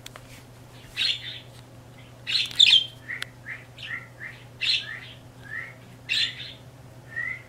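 Pet birds calling: a harsh squawk-like call every second or two, with quicker, smaller chirps in between.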